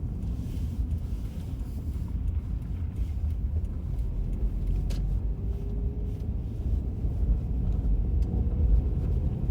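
Steady low rumble of a car driving, heard from inside the cabin, with one short click about halfway through.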